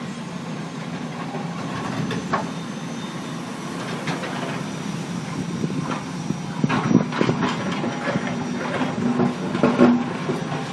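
Heavy diesel construction machinery running steadily on a road site where the old road surface is being broken up, with several loud clanks and scraping knocks, the loudest near the end, as material is dug and moved.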